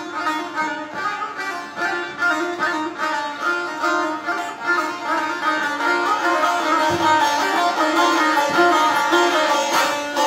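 Azerbaijani saz played solo: a fast instrumental passage of rapidly strummed and plucked strings, growing louder toward the end.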